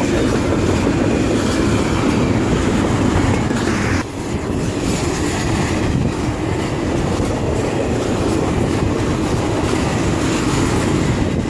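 CSX intermodal freight train's double-stack container cars and trailer flatcars passing close by at speed, their steel wheels running on the rails. It makes a loud, steady noise, strongest low down, that dips briefly about four seconds in.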